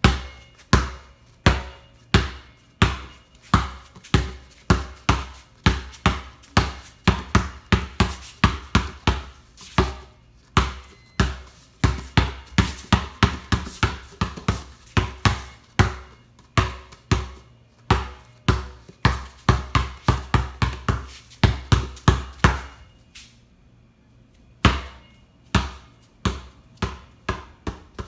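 Basketball being dribbled, bouncing repeatedly: steady bounces a little under a second apart, quickening to two or three a second in the middle, then a pause of about two seconds near the end before a few more bounces.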